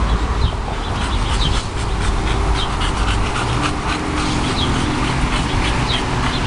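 Two English bulldogs breathing noisily and panting, a steady run of short breaths.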